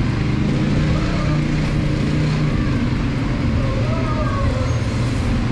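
ATV engine running steadily while the quad rolls along, with a man singing over it in the second half.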